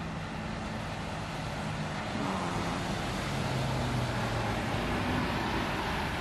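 Steady city street traffic noise, with the low hum of vehicle engines passing; it grows slightly louder about two seconds in.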